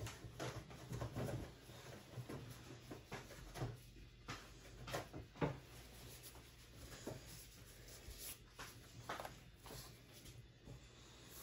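Faint handling noises: scattered soft knocks and rustling as a pair of clear disposable gloves is fetched and pulled on.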